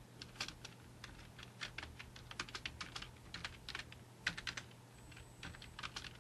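Faint typing on a computer keyboard: irregular keystrokes, a few clustered in quick runs, over a steady low hum.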